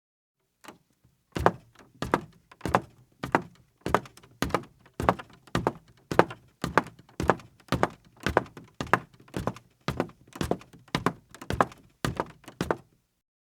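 A woman's high-heeled footsteps on a creaky floor: about twenty steady steps, a little under two a second, each a sharp heel click with a low knock. The steps begin about a second in and stop near the end.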